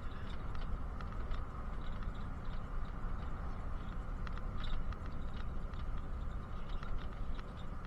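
Bus riding along, heard from inside the passenger cabin: a steady low engine and road rumble, with quick light rattles and clicks scattered throughout.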